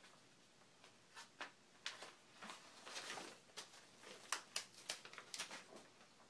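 Faint handling noise of a replacement laptop LCD panel: scattered light clicks and taps, with a short rustle near the middle and the taps coming thickest in the second half.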